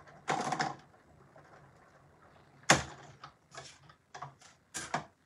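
Manual embossing machine being worked as an embossing folder with card stock is run through it: a scraping rustle near the start, then a sharp clack about two and a half seconds in, followed by a few lighter clicks.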